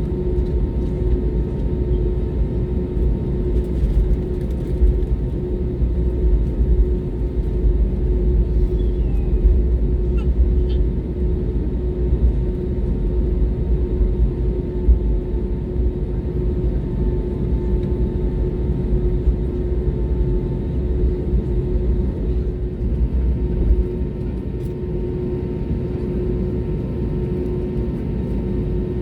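Cabin noise of an Airbus A320neo taxiing, its CFM LEAP-1A engines at idle: a steady low rumble with a constant hum, easing slightly near the end.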